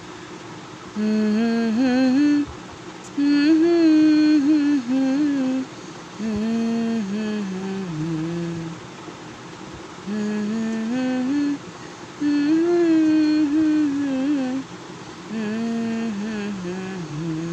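A voice humming a wordless melody in six short phrases with brief pauses between them, over a faint steady drone.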